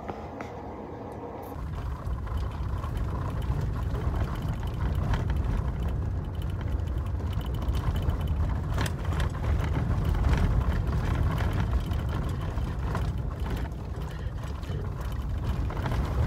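Road and engine noise heard from inside a moving car: a steady low rumble with scattered small knocks and rattles, starting suddenly about a second and a half in.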